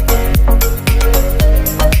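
Background music with a steady beat, strong bass and a sustained melody line.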